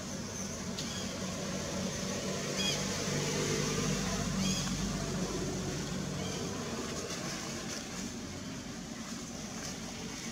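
Outdoor background noise with a distant engine hum that swells about two seconds in and fades again over the next few seconds, and two short high chirps.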